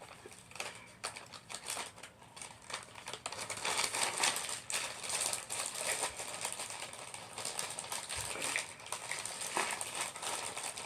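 Small plastic toy accessories being handled and unpacked: an irregular run of light clicks and taps, with some packaging rustle.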